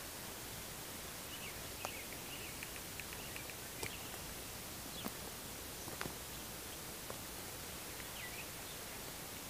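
Faint field ambience: a steady background hiss with small bird chirps now and then, and a few soft clicks.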